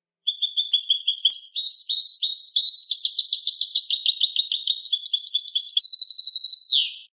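European goldfinch singing one long continuous phrase of rapid, high twittering notes for about seven seconds. It ends in a quick falling note and then cuts off sharply.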